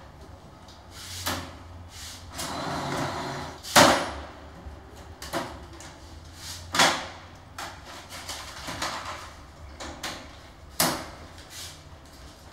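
Office photocopier being handled: its lid lifted and dropped and its paper trays worked, giving a series of sharp clunks and clicks, the loudest about four seconds in, with a short rushing pass a little before it.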